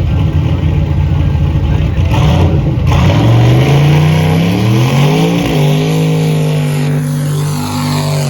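Car engine pulling hard. It runs steadily at first, then from about three seconds in the revs climb, drop sharply with a gear change about five and a half seconds in, and hold steady after that.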